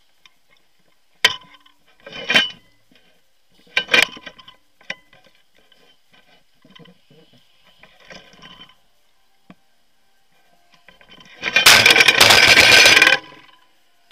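Handling noise from an action camera mounted on a loaded barbell: a few sharp knocks and clanks as the bar is gripped and moved, then a loud rough rubbing noise lasting under two seconds near the end as the bar is lifted.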